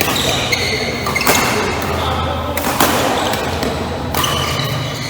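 Badminton rally: rackets striking the shuttlecock, with two loud sharp hits about a second and a half apart, and short high squeaks of shoes on the court floor, echoing in a large hall.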